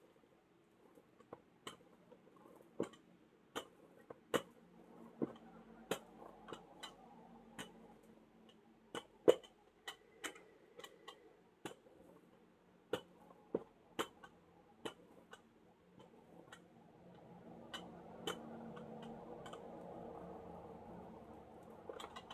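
Rubber ink brayer rolling back and forth over an inked lino block, with irregular sharp clicks and taps and a soft rolling noise that gets louder in the last few seconds.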